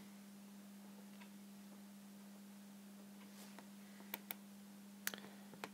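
Quiet room tone with a faint steady hum. Near the end come about four light clicks, typical of a stylus tapping on an iPad's glass screen as writing resumes.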